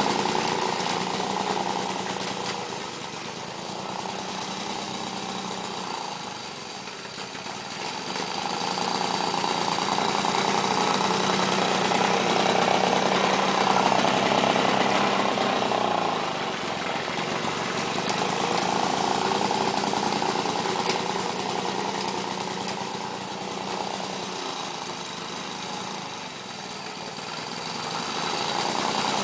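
Lawn-Boy 5247 push mower's two-stroke engine running under load while cutting grass, growing louder and fainter as the mower moves away and comes back, its note wavering at times. The muffler is clogged with carbon.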